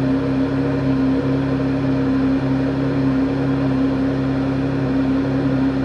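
Porsche 911 GT3 (991) flat-six idling steadily while still warming up, heard inside the closed cabin as a steady low exhaust drone. The car has an aftermarket RSS centre-section exhaust with its valves disconnected and held open, which makes it extremely loud at low rpm.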